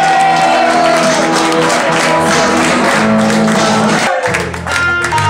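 Background song with a singing voice over the instruments. About four seconds in, the music drops out for a moment and then resumes with a heavier bass.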